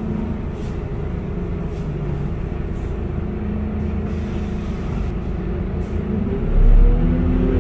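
Scania K230UB bus's five-cylinder diesel engine heard from inside the passenger cabin, running with a steady low rumble, then rising in pitch near the end as the bus accelerates away.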